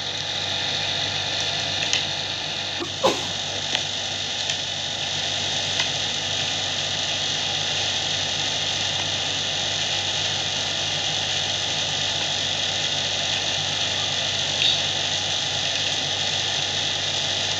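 Steady whirring, humming mechanical background noise, like a motor running, with a few faint clicks. There is one brief falling squeak about three seconds in.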